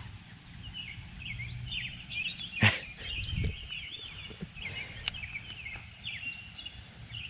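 Birds chirping and singing in a busy, overlapping chatter, with one sharp click about two and a half seconds in and a low background rumble.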